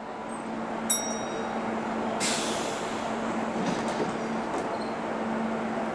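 Kintetsu limited express electric train standing at the platform with its equipment humming steadily. A short high ring comes about a second in, and a brief hiss of air a little after two seconds, as the train readies to depart.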